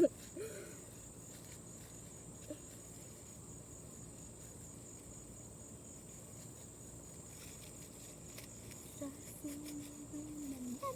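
Insects chirring steadily, a constant high-pitched outdoor drone. Near the end a voice hums a single held low note that dips at its close.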